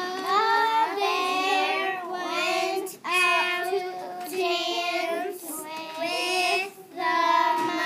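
Several young girls singing together in unison, in phrases of held notes with short breaks between them.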